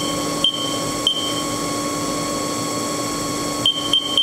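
Haas TM3 CNC mill spindle running steadily at 1500 RPM, a steady hum with high whining tones. Five sharp metallic ticks, each with a brief high ping, come at uneven intervals, three close together near the end.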